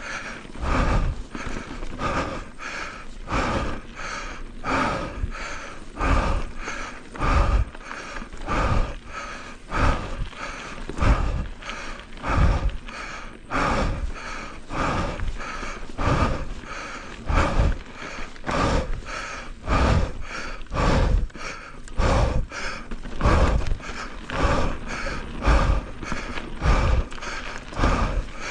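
A mountain bike being ridden on a dirt trail: an even rhythm of about two beats a second, each a low thump with a rush of noise.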